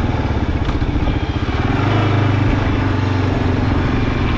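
Motorcycle engine running under way, heard from a camera mounted on the bike itself; the engine note swells briefly about two seconds in.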